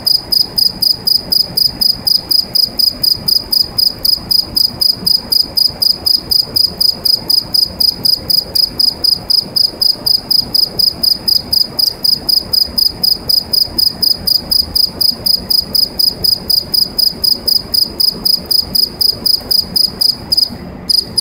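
Black field cricket singing from inside a metal pipe: a loud, high, steady chirping of about four to five pulses a second, with a brief pause near the end.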